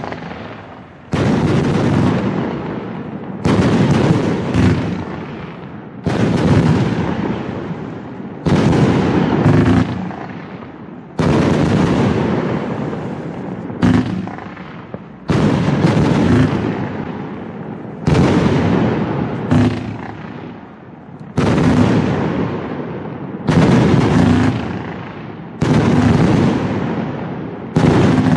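A 100-shot, 30 mm firework cake firing. A loud bang comes about every two and a half seconds, each one trailing off over a couple of seconds before the next.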